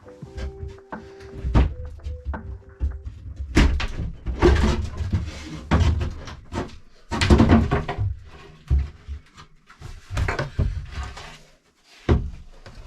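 Music fades out over the first few seconds, then a run of irregular knocks, thumps and rustling handling noise, like boards or a hatch being moved about on a boat.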